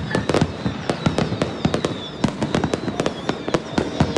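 Fireworks and firecrackers going off all around: a rapid, irregular string of sharp bangs, several a second.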